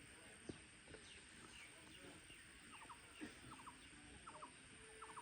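Birds calling faintly: short chirps that drop in pitch, then quick groups of two or three notes repeated about once a second.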